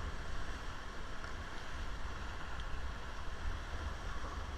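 Rushing river water during white-water rafting, a steady wash of noise, with wind rumbling on the microphone.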